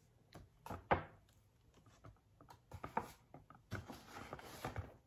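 A stiff paper shopping bag being handled and rustled as a boxed item is pulled out of it: a series of knocks and crinkles, with a sharp knock about a second in and a longer stretch of paper rustling near the end.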